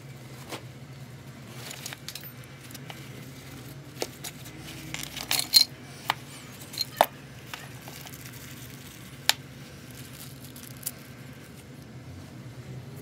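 Scattered clicks, knocks and clinks of hard objects being handled, busiest a little past the middle, with one more sharp click later, over a steady low hum.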